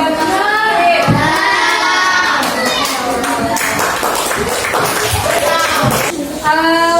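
A group of children's voices singing together, with hand claps.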